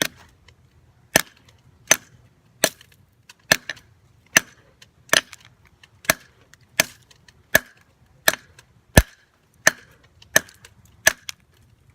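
Hammer striking an AA battery over and over, about fourteen sharp blows at a steady pace of roughly one every three-quarters of a second, trying to break open its well-built casing.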